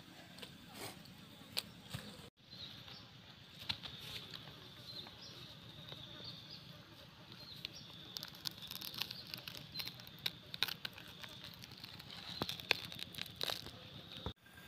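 Durian husk cracking and crackling in bursts as hands pry the spiky fruit apart, with insects chirping steadily in the background.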